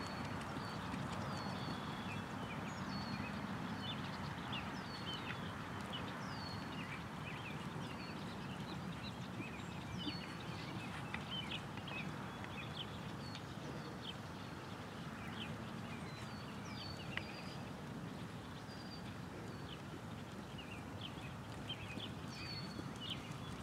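Hoofbeats of a horse trotting on a soft sand-and-dirt arena, with small birds chirping in the background.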